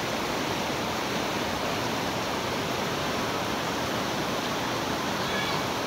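Fast mountain river rushing over rocks in rapids: a steady, unbroken noise of running water.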